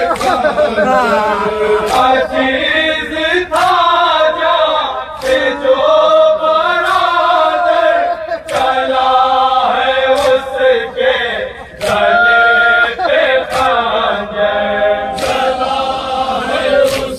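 Men chanting a noha, a Shia mourning lament, as a group in a melodic chant.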